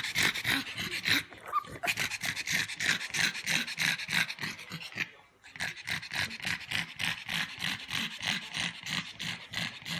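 Pugs panting with mouths open, fast and rhythmic at about five breaths a second, with a short break about five seconds in.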